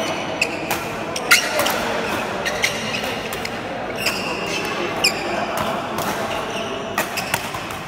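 Badminton rally: irregular sharp hits of rackets on a shuttlecock and shoes squeaking on the court floor, over steady background chatter from spectators.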